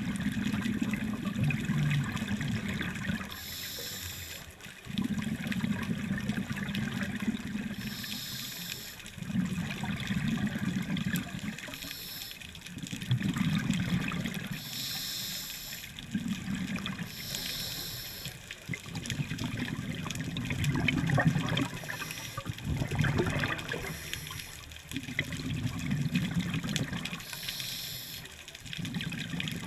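Scuba diver breathing through a regulator underwater: a short hiss on each inhale, then a longer low bubbling as the exhaled air escapes, about one breath every four seconds.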